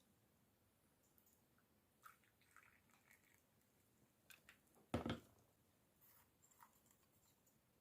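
Near silence with a few faint clicks and one soft knock about five seconds in.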